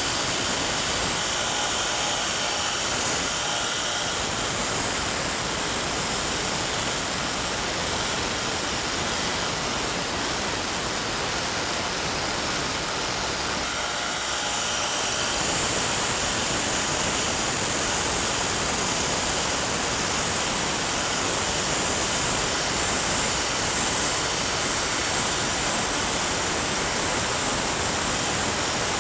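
Grinder running steadily with a hardened steel farrier's tool held against it, grinding its domed striking surface flatter and blending the edges smooth. The sound is a continuous hiss of steel on the abrasive at an even level throughout.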